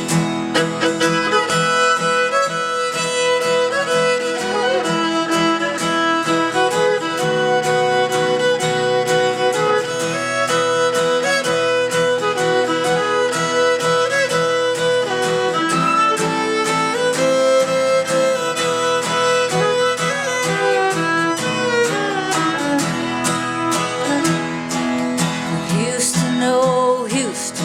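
Instrumental break of an acoustic country song: a fiddle plays a sliding melody over strummed acoustic guitar.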